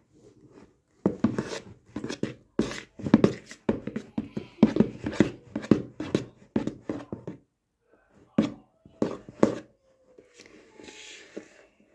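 Fluffy slime made with shaving foam being mixed and kneaded by hand: a quick irregular run of sticky squelching clicks, then a few more after a pause, and a short soft hiss near the end.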